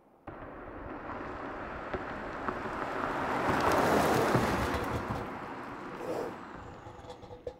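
A car passing by: a rushing tyre-and-wind noise that swells to its loudest about four seconds in and then fades, with little engine tone audible.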